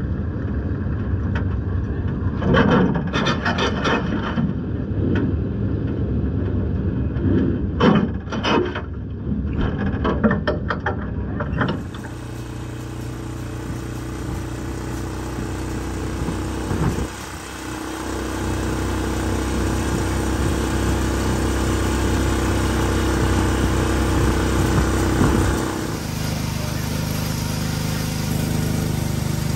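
For the first twelve seconds, a muffled vehicle recording whose level rises and falls in several bursts. From about twelve seconds in, a Yamaha ATV's engine runs steadily as it pushes a dirt late model race car, its sound changing near the end.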